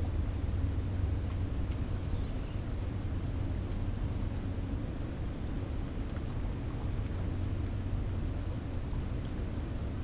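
Steady low rumble of water rushing through a dam spillway, with no distinct events.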